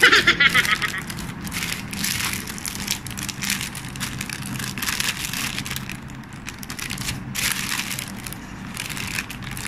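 Thin plastic bread bag crinkling and rustling in irregular crackles as hands pull it open.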